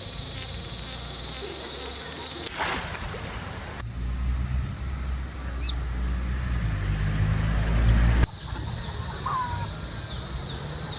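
A chorus of insects makes a steady, high-pitched drone that stops abruptly about two and a half seconds in and returns about eight seconds in. In between, a low rumble is the main sound, with a short chirp near the end.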